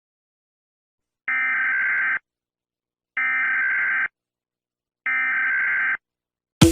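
Three bursts of Emergency Alert System SAME digital data tones, the screechy modem-like warble of an EAS alert's encoded data. Each burst lasts just under a second, with about a second of silence between them.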